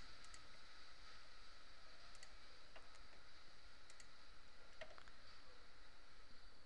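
Computer mouse clicking: a few scattered single clicks over a faint steady hiss.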